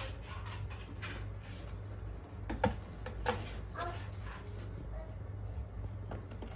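Domestic cat giving a few short meows, about two to four seconds in, over a steady low room hum.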